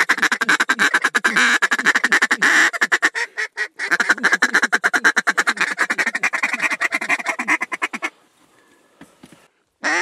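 Duck call blown in a fast, even run of short notes, like a hunter's feed chatter, with a brief break about three and a half seconds in; the calling stops about eight seconds in.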